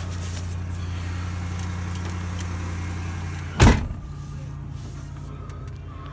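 2007 Ford F-150's engine idling steadily just after a cold start, heard from inside the cab. About three and a half seconds in, a single loud thump of the truck's door shutting, after which the engine sounds quieter.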